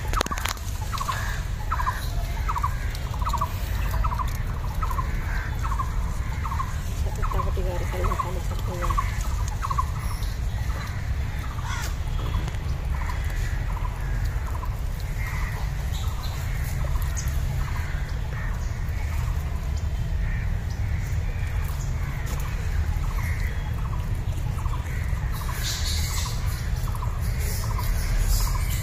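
A short chirping animal call repeated evenly, about two or three times a second, clearest in the first dozen seconds and fainter later, over a steady low rumble.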